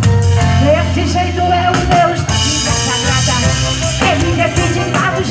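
Live band music with a singer's voice over a steady bass and drums.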